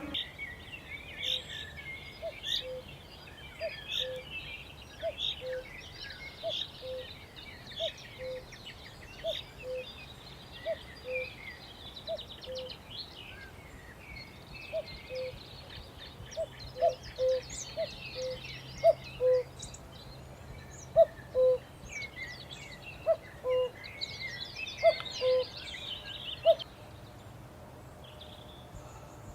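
Chorus of birds chirping and trilling, with one bird repeating a short low two-note call about every second and a half, louder in the second half.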